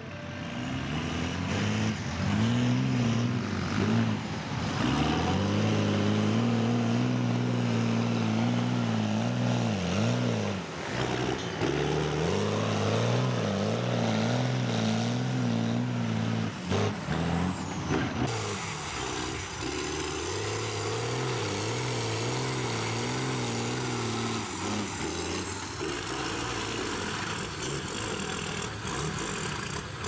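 Jeep CJ's swapped-in Cummins diesel engine revving hard and easing off again and again, its pitch rising and falling in waves, as the mud-tyred Jeep pulls through mud.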